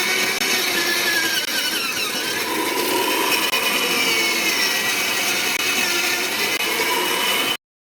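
Heavy-duty soil drill machine running, its auger boring a hole in the ground, with a steady grinding noise and a wavering whine. The sound cuts off abruptly near the end.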